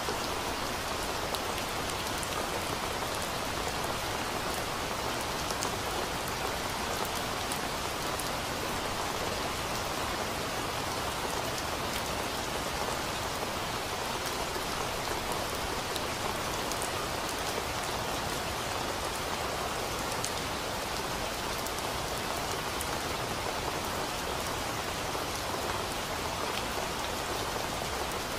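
Steady rain: an even, unbroken hiss with scattered sharp taps of single drops landing close by.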